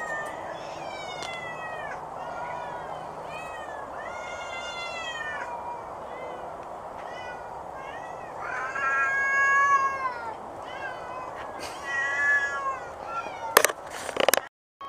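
A domestic cat giving a long run of wavering, yodel-like meows that bend up and down in pitch, the loudest and longest call about nine seconds in. A few sharp clicks come near the end.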